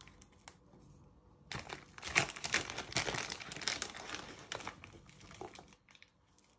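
Crinkling and rustling of a bag of brown sugar being handled while sugar is spooned out of it, a dense run of crackles lasting about four seconds.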